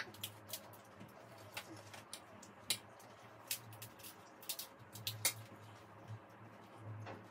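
Faint eating sounds: scattered sharp clicks and crunches of crisp pani puri shells being cracked open and handled on plates, over a low steady hum.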